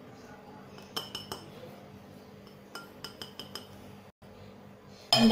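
Kitchen utensils clinking against a bowl a few times in two short clusters, about a second in and again around three seconds in, as the measured flours are tipped into the bowl of chicken wings.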